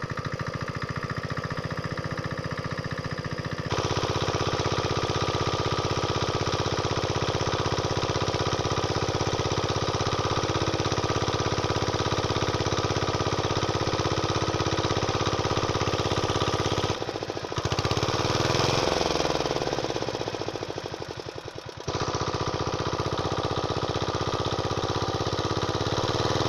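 Small single-cylinder diesel engine running a water pump, with a fast, even knocking beat. It gets louder about four seconds in, wavers in pitch and dips in level between about seventeen and twenty-two seconds, then runs steady again.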